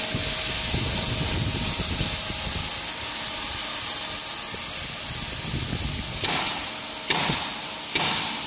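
Corona treating machine running, with a steady hiss from the electrical discharge along the electrode bar and a thin high-pitched whine that settles slightly lower over the first couple of seconds, over a low machine rumble. Several short bursts of noise come about a second apart from around six seconds in.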